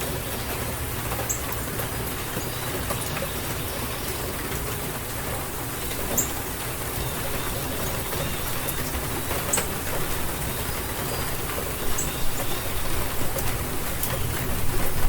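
Steady rain falling in an April rainstorm, a continuous hiss with scattered sharper drop ticks. It grows louder and more uneven near the end.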